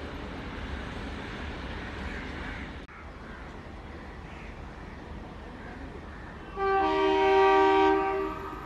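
Air horn of an ALCO diesel locomotive sounding one long blast of about two seconds near the end, several steady notes at once. Before it, the steady low rumble of a train running past.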